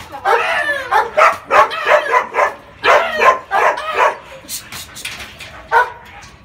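A dog giving a quick run of short excited whines and yips, each cry bending in pitch. They come thick and fast for about four seconds, then thin out to a few separate cries.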